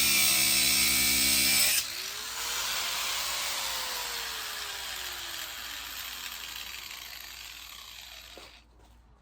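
A power tool running loudly, cut off abruptly about two seconds in. A fainter whir follows, its pitch rising a little and then sliding slowly down as it fades away.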